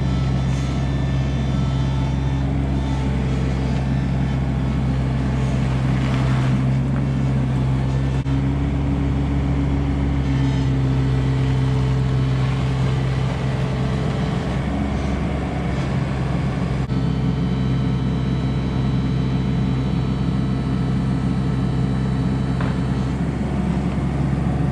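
Komatsu PC16 mini excavator's diesel engine running at a steady speed, its pitch shifting slightly now and then.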